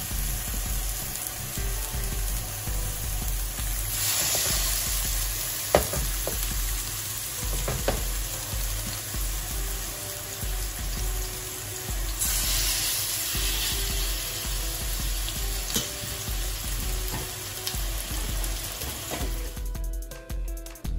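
Seasoned chicken breasts sizzling in hot olive oil in a nonstick pan: a steady frying hiss that swells louder twice, with a couple of sharp clicks. The sizzling cuts off shortly before the end.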